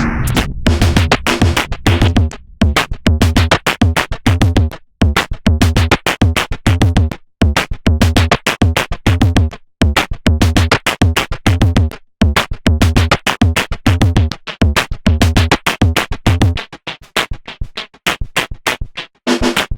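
Electronic drum-machine pattern from the Elastic Drums synthesizer app playing a preset: a fast, steady loop of deep kick drums, short pitched synth hits and clicky percussion, dropping out for a moment every couple of seconds.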